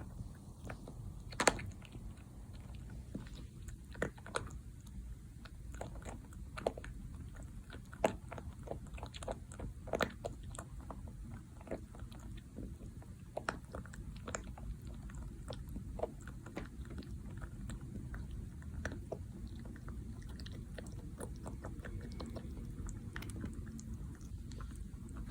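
Mini Rex rabbit's teeth crunching and clicking in short, irregular runs, thickest in the middle.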